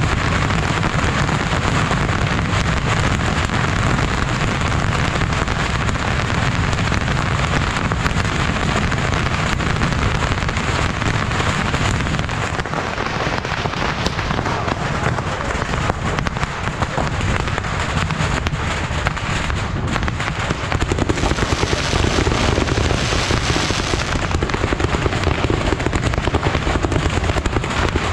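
Dense, continuous crackle of firecrackers going off in rapid succession, a steady rattle of countless small bangs that grows somewhat louder in the last several seconds.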